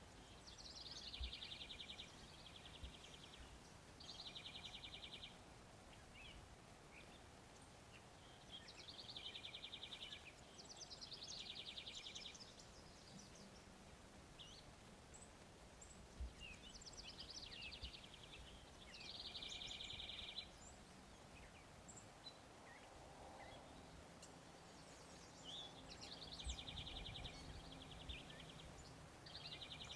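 A songbird singing faint, repeated short trilled phrases, often two in quick succession, every few seconds over low outdoor background noise.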